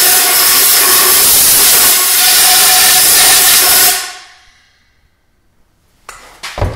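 Compressed-air blow gun blowing out a motorcycle fork's outer tube to clean it: a loud steady hiss with a faint whistle in it that cuts off about four seconds in. A couple of light knocks follow near the end.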